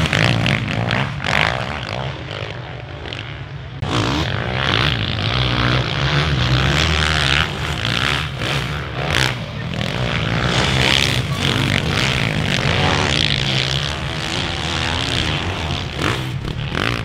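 Motocross dirt bike engines revving hard and rising and falling in pitch as the bikes race through ruts and over jumps, with an abrupt shift about four seconds in.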